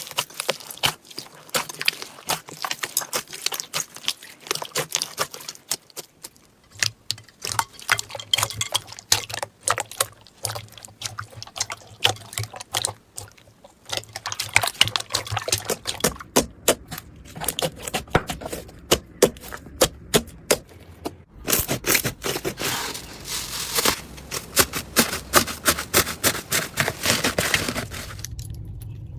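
Slime being squished and pressed by hand, making quick, irregular wet clicks and pops.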